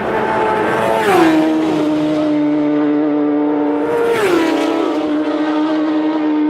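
Two racing motorcycles pass at high speed one after the other, about a second in and about four seconds in. Each engine note drops sharply in pitch with a rush of air as it goes by, then holds steady.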